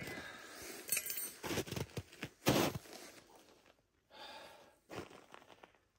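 Footsteps crunching on snow, growing fainter as the walker moves away, with a light clink near the start.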